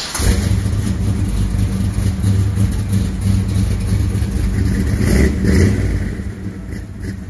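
The 1964 Chevrolet Impala SS's beefed-up 350 small-block V8 running with a deep rumble, swelling briefly about five seconds in.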